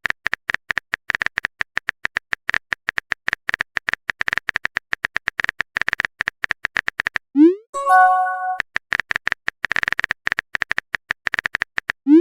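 Rapid clicking of a keyboard typing sound effect, as for a chat message being typed. About seven seconds in it pauses for a short rising blip and a bright chime of several tones, a message notification sound, and then the typing clicks resume.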